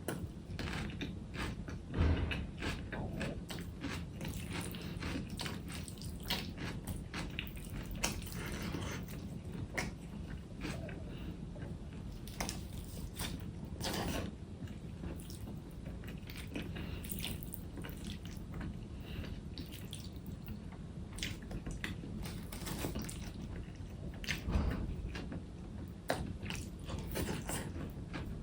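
Close-miked eating sounds: a person chewing food, with many short quick clicks and smacks from the mouth over a low steady hum. There are two louder soft thumps, one about two seconds in and one near the end.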